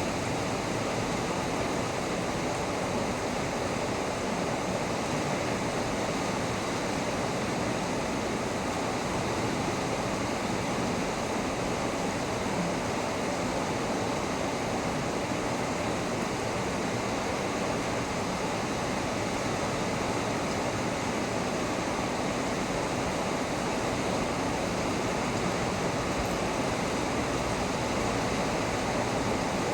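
Heavy rain falling steadily, a constant even hiss with no thunder.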